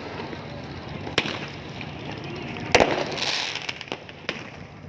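Firecrackers going off outdoors: a few sharp cracks, the loudest a little under three seconds in, followed by a brief crackling hiss.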